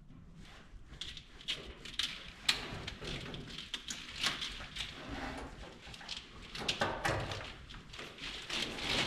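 Scattered clicks, knocks and rustles of a wiring harness and its plastic connectors being handled and fed into place in an engine bay.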